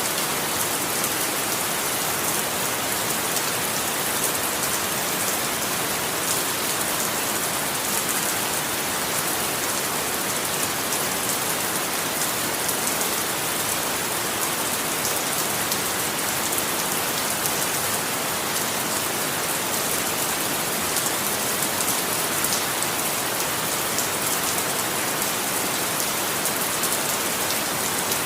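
Steady rain falling and pattering on a surface, an even hiss with fine drop crackle and no change in intensity.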